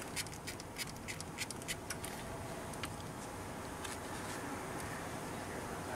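Light clicks and taps of hand work on an AC line fitting and pressure sensor under a car's hood, about a dozen in the first two seconds, then only faint steady background noise.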